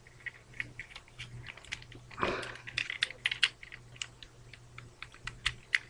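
Small irregular plastic clicks of a Transformers Ironhide action figure's parts being handled and shifted during transformation, with a brief soft rustle about two seconds in.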